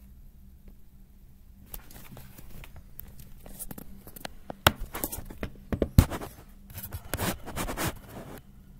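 Close handling noise: scraping and rustling with scattered clicks, starting about two seconds in, two hard knocks around the middle, then a stretch of scratchy rubbing.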